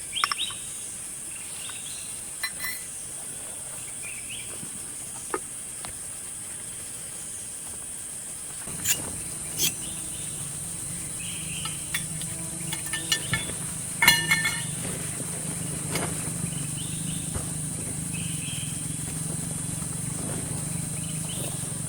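Insect chorus, a steady high-pitched buzz, with scattered sharp clicks and knocks, the loudest about fourteen seconds in. A low steady hum joins about nine seconds in.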